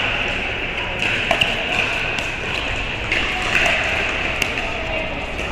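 Pickleball paddles hitting a plastic pickleball back and forth in a rally, a quick run of sharp pops at irregular spacing, some fainter than others, over the steady background noise of an indoor hall.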